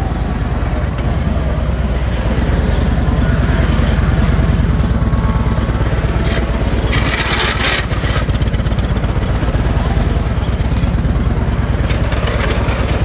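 Harley-Davidson police touring motorcycle's V-twin engine running steadily at low speed as it is ridden slowly through tight turns. A brief hiss rises over it twice, about six seconds in and near the end.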